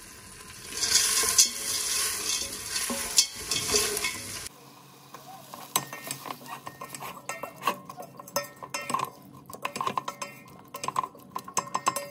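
Food sizzling and crackling in a hot pan. About four and a half seconds in, this abruptly gives way to a utensil stirring and scraping in a pan, with many quick, irregular clinks.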